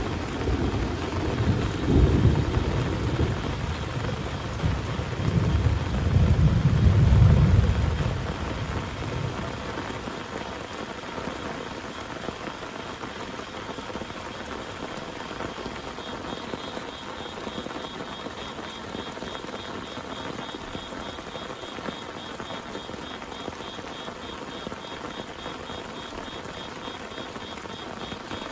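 Heavy rain falls steadily while thunder rumbles through the first several seconds, swelling twice before it dies away. A faint, fast high-pitched pulsing joins about halfway through.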